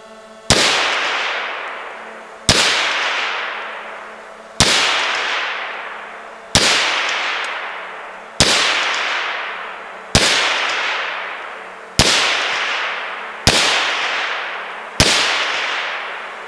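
Zastava PAP M92 AK pistol in 7.62×39 fired through a Sandman-S suppressor: nine single shots, about two seconds apart. Each is a sharp report followed by a long fading tail, still loud despite the suppressor.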